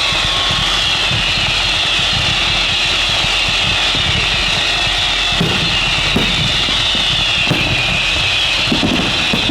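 Fireworks going off in the distance, with a few short thuds and pops in the second half, over a steady low rumble and a steady high-pitched drone.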